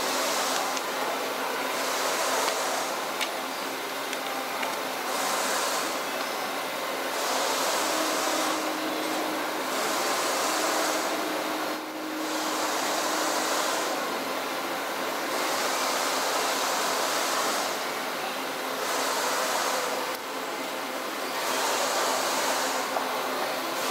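Factory metalworking machinery running steadily, with a hiss that swells and fades about every one to two seconds.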